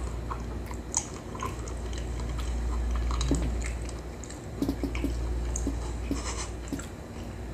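Close-miked chewing and biting of food, with scattered small clicks, over a steady low hum.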